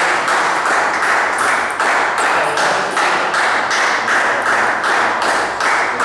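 Spectators clapping in a steady rhythm, about two to three claps a second.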